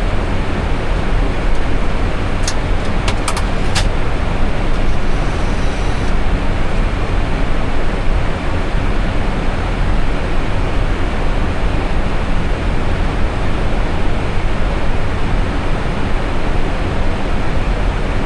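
Steady, loud rush of air and engine noise inside an Airbus A320 cockpit in flight, strongest low down, with a few sharp clicks about three seconds in.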